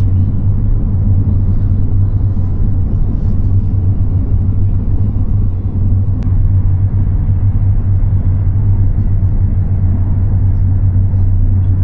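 Steady, loud low rumble of a Chinese high-speed (CRH) train running on the track, heard from on board.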